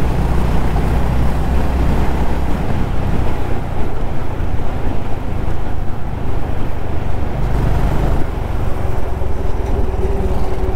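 Honda CB350RS single-cylinder motorcycle engine running at road speed, with wind rushing over the microphone. The low engine rumble swells and eases as the throttle changes.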